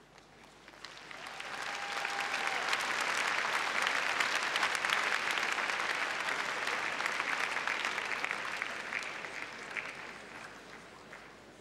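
Crowd applauding, swelling over the first couple of seconds and dying away near the end.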